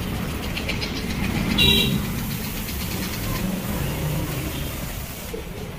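Road traffic rumbling, with a short vehicle horn toot about one and a half seconds in. A steady hiss runs alongside and cuts off shortly before the end.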